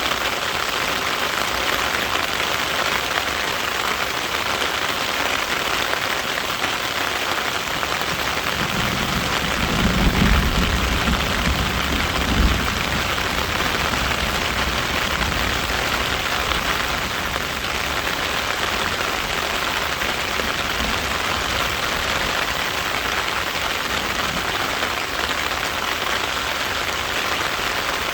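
Steady rain falling, an even hiss of drops on a surface. A low rumble swells about a third of the way in and ends in a short low thump a couple of seconds later.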